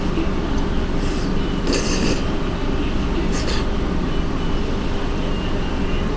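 Steady low rumble of background noise in an underground eatery, with two short hissing sounds about two seconds and three and a half seconds in.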